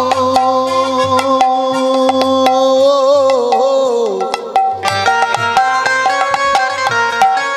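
Devotional kirtan music without singing: a sustained melody line that bends in pitch over hand-drum strokes and sharp clicks. About five seconds in, the melody changes to quick, separate notes.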